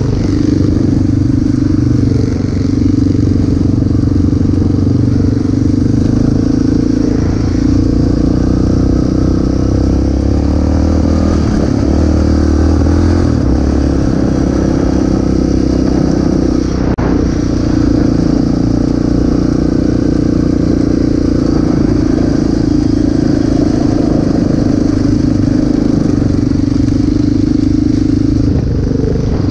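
ATV engine running steadily at speed on a gravel road, with its pitch shifting a few times around the middle as the throttle changes.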